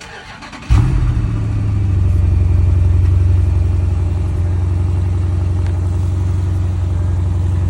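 Jeep SRT HEMI V8 exhaust comes in suddenly about a second in, then runs at a steady, loud idle with a deep low rumble.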